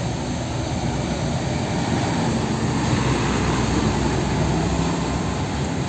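Steady rushing spray with a low hum underneath: a small water sprayer washing mud off a toy tanker truck.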